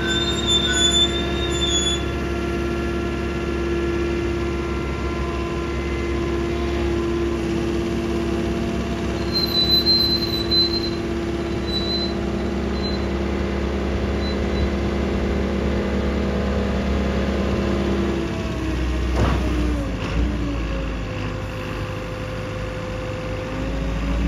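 Manitou MVT 1332 SL telehandler's diesel engine running steadily while the boom is lowered, with short high-pitched squeals near the start and about ten seconds in. About eighteen seconds in the engine note drops, a single knock is heard, and near the end the note rises again.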